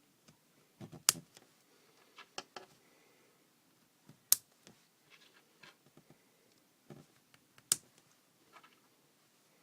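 Small plastic pieces being handled and clicked together, with three sharp loud snaps (about a second in, about four seconds in and near the end) amid softer ticks and rattles.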